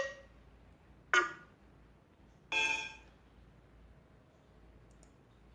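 Three short electronic sound-effect samples for an electrocumbia track played one after another through computer speakers: a sharp hit at the start, a ringing hit about a second later, then a longer pitched tone of about half a second.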